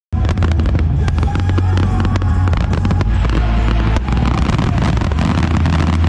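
Fireworks going off in quick succession: a dense run of sharp cracks and bangs over a constant low rumble, starting abruptly.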